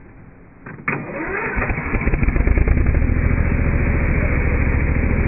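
Lawn mower engine starting about a second in, then building up and running steadily with a low, rapid throb.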